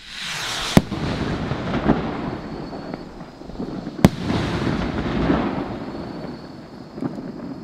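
Funke Bomben Raketen firework rockets bursting in the sky: a sharp bang about a second in and another about four seconds in, each trailed by several seconds of hissing, rumbling noise.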